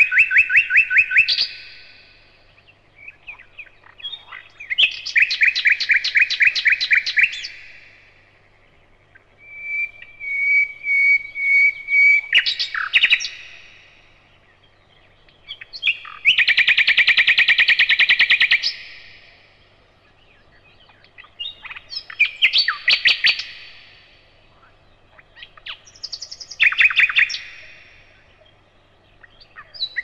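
Common nightingale singing: about seven separate phrases of rapid repeated notes and trills, with short pauses between them. One phrase about ten seconds in opens with a held whistle.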